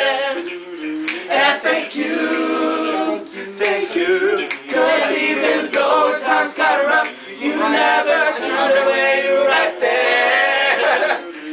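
A group of voices singing a cappella, with held notes sung in phrases of a few seconds and brief breaks between them.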